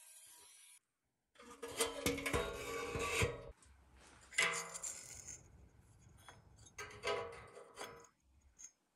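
Loose pressed-steel toy parts clattering and scraping against a wooden workbench as they are handled, with short metallic rings, in three bursts: the longest early on, then two shorter ones.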